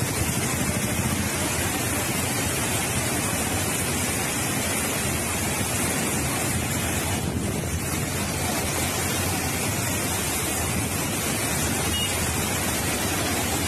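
Fast floodwater rushing across a road in a steady, unbroken roar of churning water.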